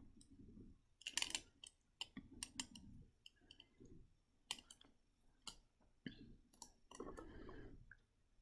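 Metal sculpting tool scraping the glossy inner layer off a halved avocado stone: faint, irregular small clicks and scrapes, densest about a second in.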